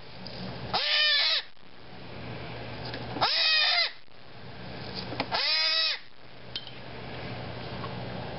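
Goat kid bleating three times, each call about half a second long and rising then falling in pitch, as a hot disbudding iron burns its horn bud.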